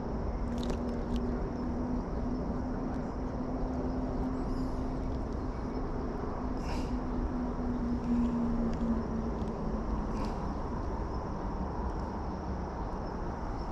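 Steady outdoor rumble with a distant engine droning on one low pitch that fades out after about nine seconds, and a few faint clicks.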